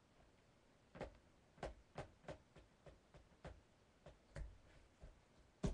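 Near silence broken by faint, irregularly spaced clicks, about a dozen of them, starting about a second in.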